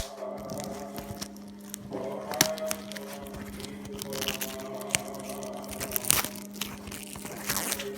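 Packaging of a sticky-note set crinkling and crackling as it is handled and opened, with irregular sharp clicks and snaps.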